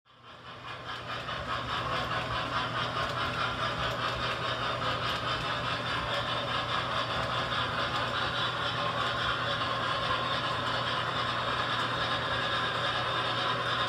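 Model Y6b steam locomotive pulling passenger cars around a model railroad layout: a steady rolling rumble of wheels on track with a constant electrical hum, fading in over the first two seconds.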